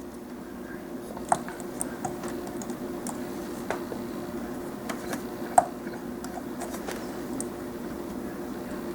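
Scattered small plastic clicks and taps from a plastic Transformers action figure being handled and posed, two a little louder than the rest, over a steady low hum.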